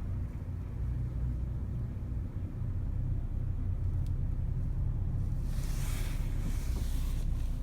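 Car driving, heard from inside the cabin: a steady low road and engine rumble, with a passing swell of hiss about two-thirds of the way through.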